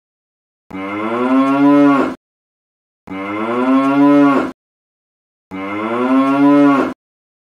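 A cow mooing three times, each moo about a second and a half long, rising slightly in pitch and dropping at the very end. The three moos are identical, one recorded moo repeated with dead silence between.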